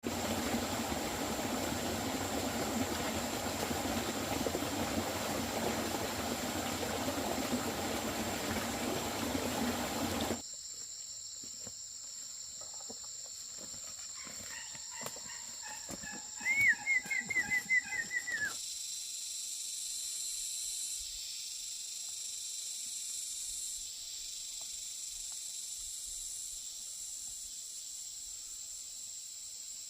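A steady, rushing hiss that cuts off suddenly about a third of the way in, then outdoor ambience: a steady high insect drone with a bird giving a short, rapid run of chirps about two-thirds through.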